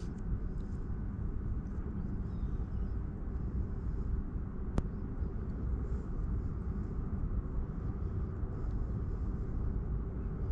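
Steady low outdoor rumble, with one sharp click about halfway through.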